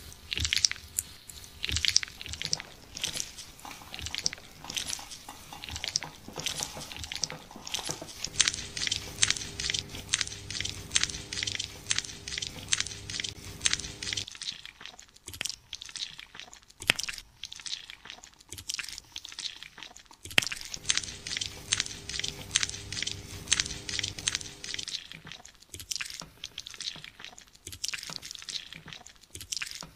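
Disposable plastic gloves crackling and rubbing on skin as hands knead the neck, a dense run of small crinkly clicks.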